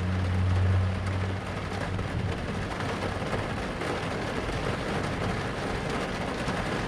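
Steady rain falling, an even hiss throughout, with a low steady hum underneath that stops about a second and a half in.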